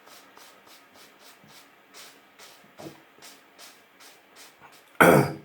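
Straight razor scraping through beard stubble in short rasping strokes, about four a second. A single loud knock or bump comes near the end.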